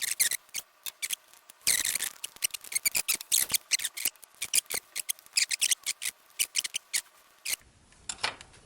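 A tool scraping and clicking in quick, irregular strokes as the aluminium crossbar of a Casio PB-2000C pocket computer is worked loose from its plastic case, where a dab of glue holds it. The strokes stop shortly before the end.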